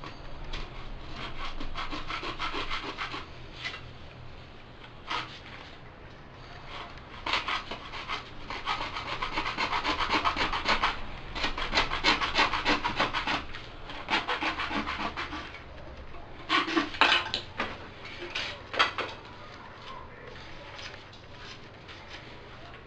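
Hand saw cutting through a plastic water pipe for a cemented joint, rasping back and forth in several runs of strokes with short pauses, ending in a few separate strokes.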